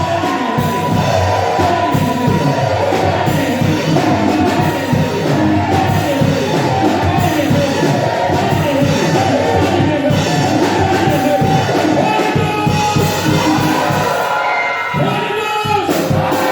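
A church congregation's many voices raised together, shouting and singing, over background music.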